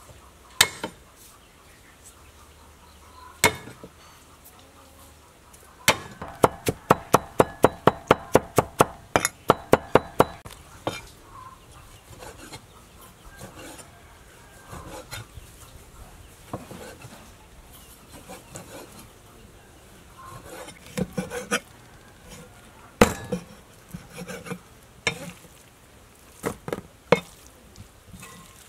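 Cleaver chopping raw beef on a chopping board: sharp knocks, with a fast even run of about four chops a second from about six to ten seconds in, then occasional single chops.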